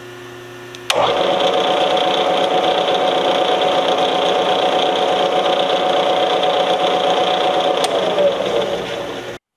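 Milling machine spindle switched on with a click about a second in and running steadily, turning the M3 tap in its chuck to back it out of the freshly tapped hole in the steel pistol slide. Its pitch drops near the end as it winds down.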